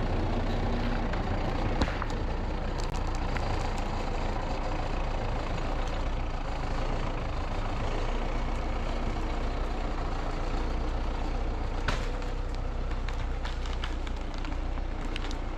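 MTZ-82 tractor's diesel engine running steadily, with a sharp knock or clank about two seconds in and again near twelve seconds.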